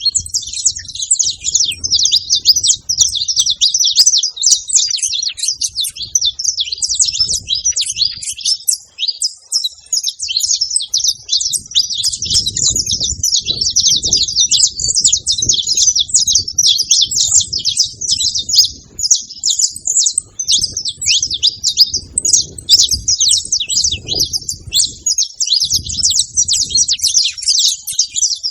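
Saffron finches chirping and singing: a dense, unbroken run of rapid, high notes, with a brief lull about nine seconds in.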